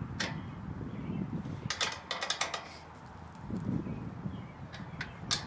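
Small metal clicks and clinks of a bolt, nut and open-end wrench being handled while a bumper is bolted onto a generator's steel frame: a few scattered taps, with a quick cluster about two seconds in, over a low steady background rumble.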